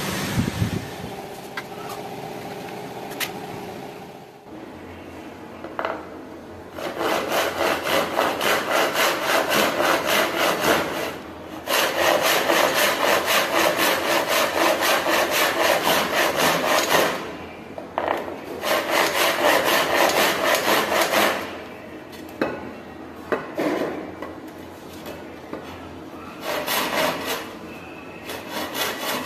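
Hand saw cutting through a strip of wood in quick, even back-and-forth strokes, in several long runs with short pauses between.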